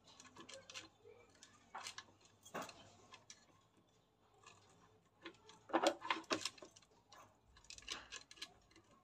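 Light, scattered clicks and small rattles of wires and metal fittings being handled and fastened at the terminals of an electrical board's switch, loudest in a short cluster about six seconds in.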